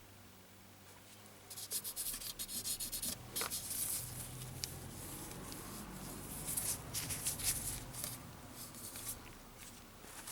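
Irregular rubbing and scraping with many small clicks as the opened compressor and its parts are handled, starting about a second and a half in, with a brief squeak a couple of seconds later.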